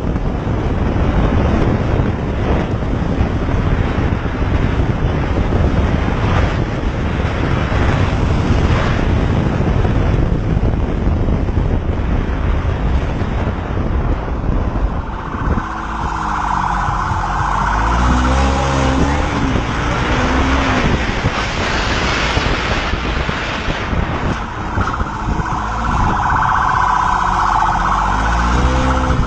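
Wind and road noise from riding at speed. About halfway through, a police car siren starts wailing with rising and falling sweeps, then stops and starts again near the end.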